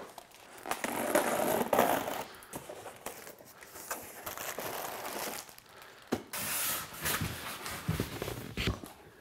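Cardboard boxes being handled and lifted out of a shipping carton: rustling and scraping of cardboard, with a few sharp knocks.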